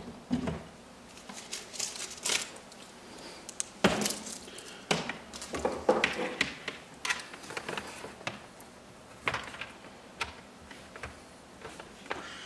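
Irregular clicks, taps and knocks of hands handling a laptop: a cable being plugged in and keys being pressed, a dozen or so separate sharp sounds with short gaps between them.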